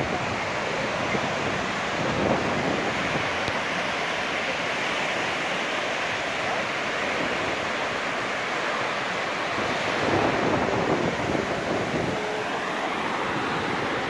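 Small sea waves breaking and washing up over a sandy beach in a steady rushing surf, swelling a little louder as a wave comes in about ten seconds in.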